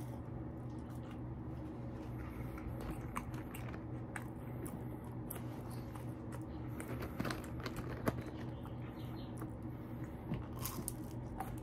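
Close-up chewing and biting of wavy-cut French fries, with scattered soft crunches and wet mouth clicks over a steady hum; the sharpest snaps come about two-thirds of the way through.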